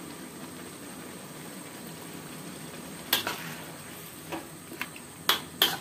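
Sauce simmering and bubbling steadily in a wok while a spatula stirs it. From about three seconds in, the spatula knocks and clinks against the wok several times.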